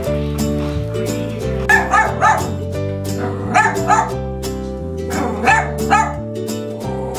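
Small dog barking in short, high yaps, in three quick groups of two or three, over steady background music.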